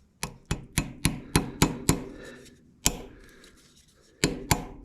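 Hammer blows driving a screwdriver down between a cylinder sleeve and the block of a Ford 8N tractor engine, to start the sleeve out. A quick run of about seven strikes, a single blow about a second later, then another run of strikes near the end.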